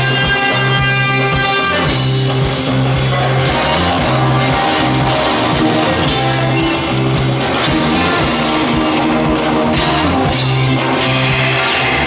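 Live band playing a song: electric guitars over a repeating bass line and a drum kit.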